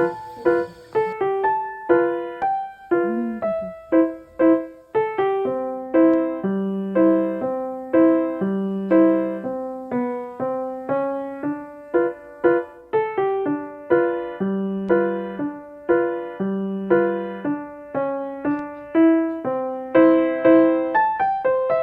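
Background piano music: a gentle melody of separate notes, each struck and fading away.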